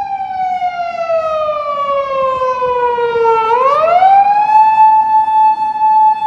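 Japanese police patrol car siren wailing on an emergency run: the pitch falls slowly, then about three and a half seconds in sweeps quickly back up and holds high, starting to fall again near the end.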